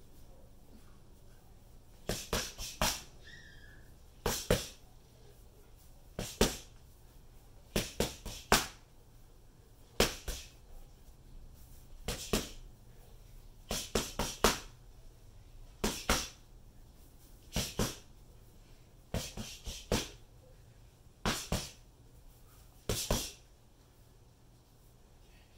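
Boxing gloves punching focus mitts: short combinations of one to four sharp smacks, a fresh combination about every two seconds, stopping a couple of seconds before the end.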